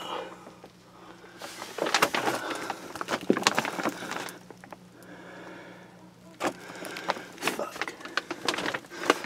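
Plastic vapor-barrier sheeting crinkling and crackling as someone crawls over it, in two spells of rapid crackles with a quieter lull between them.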